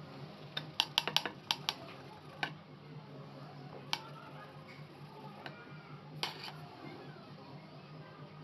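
Sharp clicks and taps: a quick run of several about a second in, then single ones a few seconds apart, over a low steady hum.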